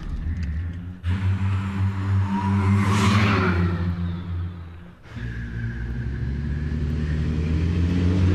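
A choir imitating a car with their voices: a low engine-like drone with a swelling whoosh about three seconds in, like a car passing. The sound drops away about five seconds in, then builds back up.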